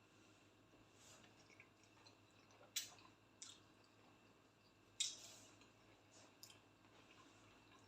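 Faint eating noises at a table: a few short sharp clicks and smacks over near silence, the two loudest about three and five seconds in.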